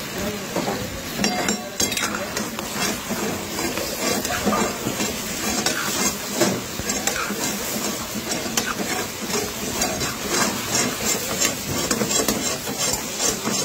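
Chicken pieces and tomatoes sizzling in hot oil in a metal karahi while a metal spatula stirs them, scraping and clinking against the pan again and again.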